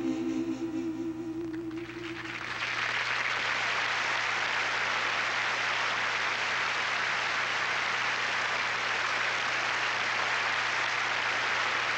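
The duet's last held sung note, wavering with vibrato, fades out over the first two seconds. Then a large audience applauds steadily.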